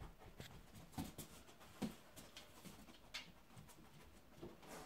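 Faint sniffing and scattered light ticks from a dog nosing along the base of a sofa, its claws clicking on a laminate floor as it searches.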